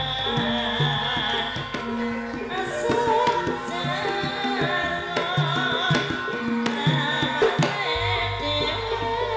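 Javanese gamelan music: kendang hand-drum strokes over sustained ringing metal tones, with a deep low tone at the start that returns near the end.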